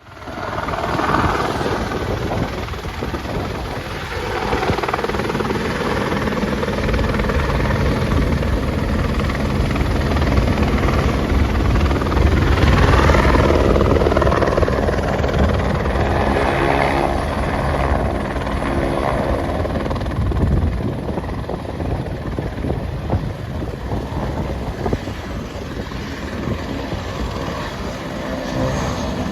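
A large engine running with a steady low rumble, swelling somewhat louder around the middle.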